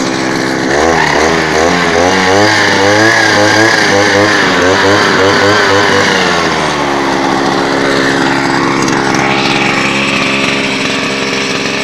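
Two-stroke engine of a Micul Fermier 712 brushcutter, just after a cold start, on throttle. Its revs surge up and down about twice a second, then it drops back to a steady idle about seven seconds in. The fuel is mixed with more oil than it should be.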